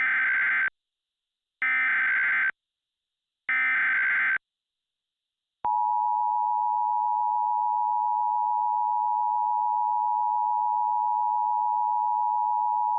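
Emergency Alert System opening: three short bursts of SAME digital header tones, each just under a second, which encode the alert. About five and a half seconds in, the steady two-tone EAS attention signal (853 and 960 Hz) starts and holds.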